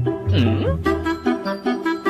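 Upbeat background music with a pulsing bass line and a short swooping dip and rise in pitch about half a second in.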